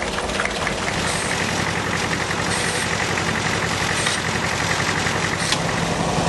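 An engine running steadily with a rapid low pulse and a light ticking. Four short hisses come at even spacing about every one and a half seconds.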